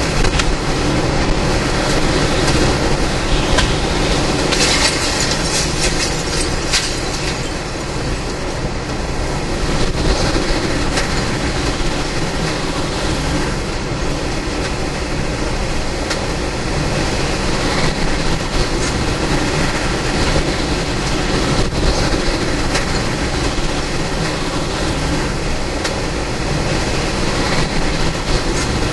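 Hurricane-force wind and driving rain of a Category 3 hurricane's eyewall blowing steadily, a continuous train-like roar. A spell of harsher hiss and crackle comes about five seconds in.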